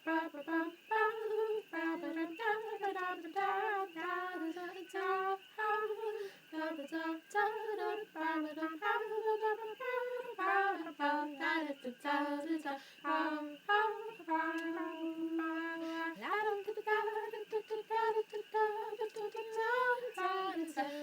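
Unaccompanied female voice singing a melody in short stepped notes, with a longer held note about two-thirds of the way through followed by an upward slide.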